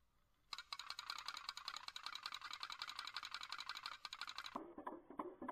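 Homemade membrane pop-pop boiler clicking rapidly and evenly as its diaphragm pulses, driving the boat's seesaw tail. About four and a half seconds in, the clicking turns slower and duller, about three or four a second.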